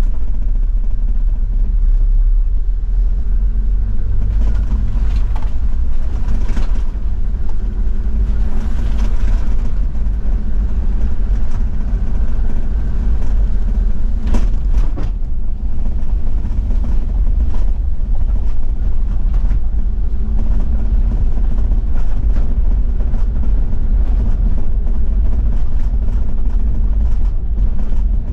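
Toyota Land Cruiser 70-series diesel driving on an unpaved forest road: a steady, loud low engine drone with occasional knocks and rattles from the rough surface.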